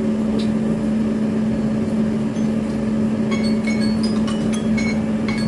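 A steady low mechanical hum with a fixed pitch, like a running kitchen appliance or fan. From about two and a half seconds in, light high clinks and pings come in over it.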